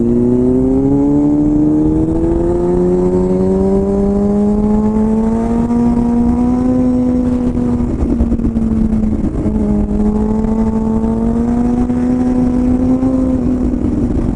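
Sport motorcycle engine running under steady throttle while riding, its note climbing slowly for several seconds, dipping briefly about eight seconds in, then holding fairly level, over a low steady rumble.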